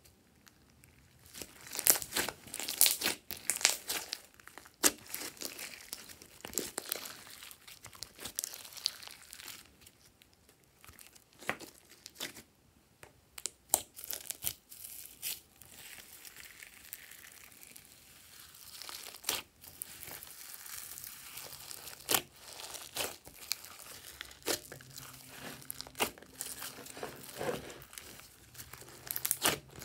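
Hands squeezing, stretching and poking glossy slime, giving irregular clusters of sticky clicks and crackling pops, mixed with crinkling from silver tinsel strips and a plastic bag worked into the slime.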